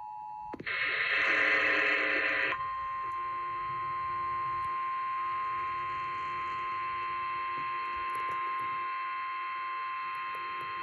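Emergency Alert System tones over the radio: a two-tone attention signal cuts off about half a second in, followed by about two seconds of loud harsh noise, then a single steady beep-like alert tone held for about nine seconds. This is the alarm sequence that announces a Flash Flood Warning.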